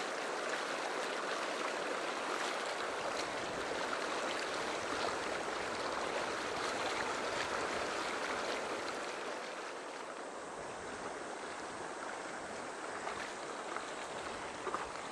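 Fast river current rushing over shallow riffles, a steady, even rush of water that drops slightly in level after about ten seconds.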